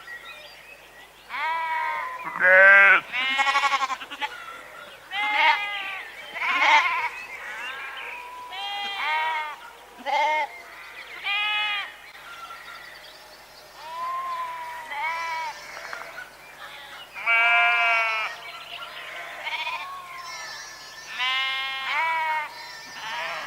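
Several sheep bleating one after another, a dozen or more separate quavering baas of different pitches, some calls overlapping.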